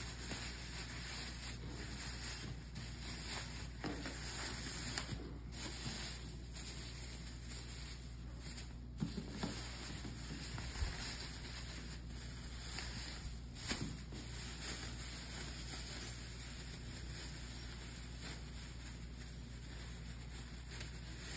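Thin clear plastic bag rustling and crinkling as it is pulled over a pizza and its end twisted and tied shut, with a few sharper crackles.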